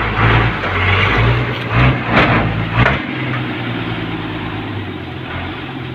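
REO 6x6 truck engine running: louder and uneven for about three seconds, with a few short surges, then settling to a steadier, quieter run.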